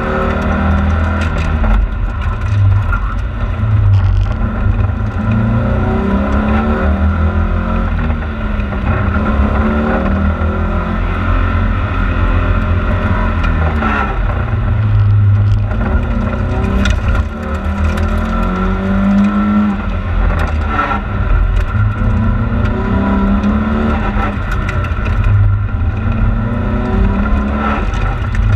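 Volvo 940 rally car's engine heard from inside the cabin at full effort, its pitch climbing under hard acceleration and dropping back again and again as the driver lifts and shifts.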